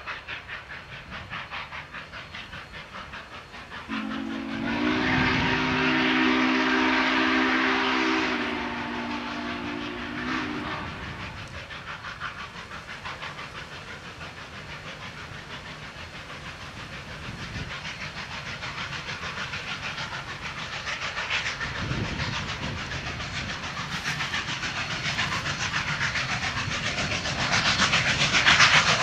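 Union Pacific 844, a 4-8-4 steam locomotive, blows its steam whistle: one chord of several tones, starting about four seconds in and held for about six seconds. Under it the exhaust chuffs in a quick, even rhythm, growing louder near the end as the train comes closer.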